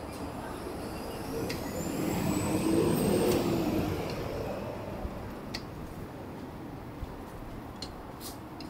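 A motor vehicle passing by, its sound swelling and fading over about three seconds with a slight rise and fall in pitch. A few light clicks follow in the second half.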